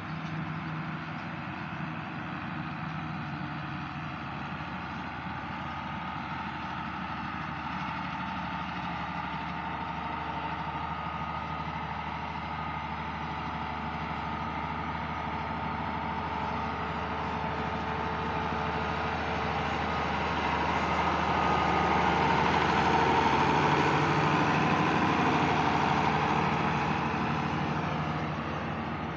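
Farm tractor engine running steadily through hay baling work, growing louder about two-thirds of the way through and then easing back.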